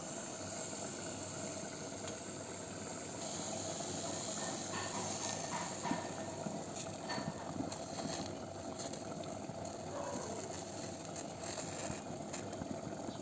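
Steady hiss of a gas burner under tomatoes roasting and sizzling on a steel grater, with a few sharp clicks of metal tongs against the grater as they are turned.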